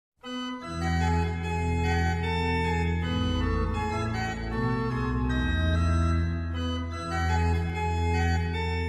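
Organ music playing slow, held chords.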